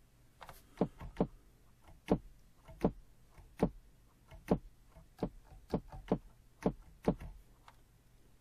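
A noise sample in the Battery 4 drum sampler, triggered about a dozen times at uneven intervals. Each hit is a short downward sweep as an LFO sweeps the lowpass filter's cutoff, retriggered so that every hit starts at the same point in the sweep.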